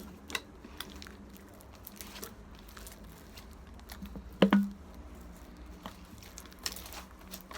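Clear-glue slime being mixed and kneaded by hand: soft sticky squishing with scattered small clicks. A sharper knock comes about four and a half seconds in.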